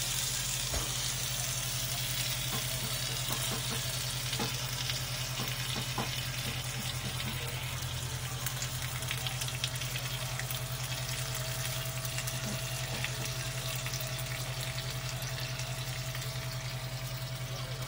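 Chicken and pineapple skewer sizzling on the hot plate of an electric contact grill: a steady hiss with small scattered crackles, over a steady low hum.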